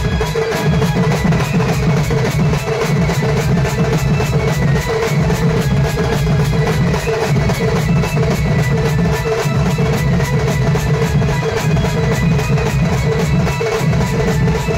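Folk percussion band playing a fast, steady rhythm on drums and large metal hand cymbals, the cymbal strokes ringing over a pulsing drum beat.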